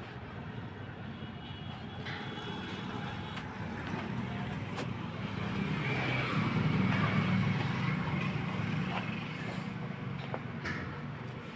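A motor vehicle's engine running nearby, a steady low hum that grows to its loudest about six to eight seconds in, then eases off.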